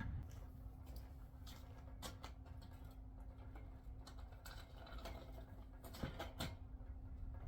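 Faint, scattered clicks and taps of sliding-door parts being handled and fitted back together, with a few sharper knocks about two seconds in and again around six seconds in, over a steady low hum.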